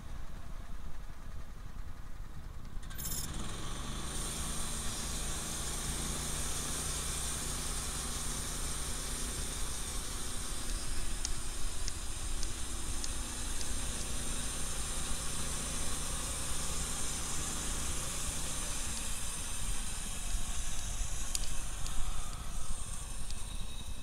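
Band sawmill's carbureted engine running low, then revving up about three seconds in and running steadily under load as the band blade cuts through a log with a steady high-pitched hiss, which eases off near the end.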